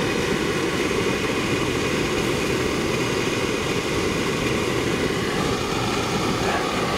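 Portable gas stove burner running steadily under a kettle: an even, unbroken rushing noise.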